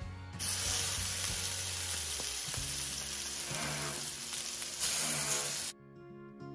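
Marinated chicken pieces sizzling as they go into hot soy oil and caramelised sugar in an enamelled pan. The sizzle starts about half a second in, gets louder again about five seconds in as another piece goes in, then cuts off suddenly, leaving soft background guitar music.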